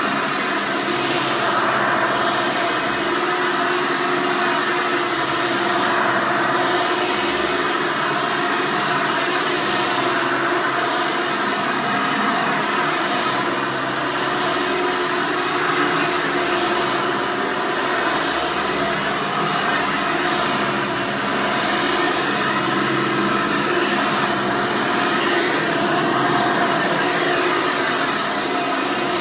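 1999 Hoover Soft & Light (U4249-030, Elite 200 platform) upright vacuum running, loud and steady: its 7-amp direct-air motor gives a constant tone over the rush of air.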